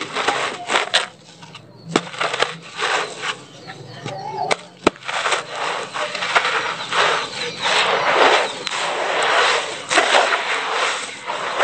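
Gloved hands crumbling and raking dry, gritty cement-sand mix in a plastic basin: gritty crunching and rustling with a few sharp clicks in the first half, growing denser and steadier about halfway through.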